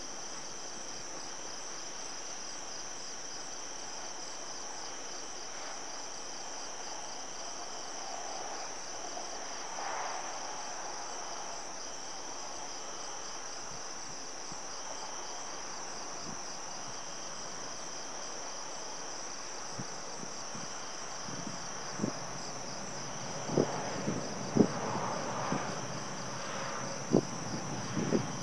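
Crickets chirring in a steady, high, finely pulsing trill, with a second, lower insect call coming and going. In the last third, a run of sharp pops and knocks cuts in, louder than the insects.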